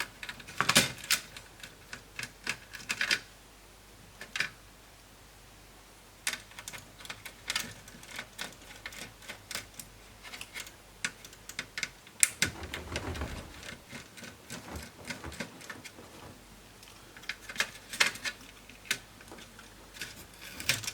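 Scattered clicks and taps from the plastic parts of a Lenovo B550 laptop being handled and set down during disassembly. A short low scraping rumble comes about twelve seconds in.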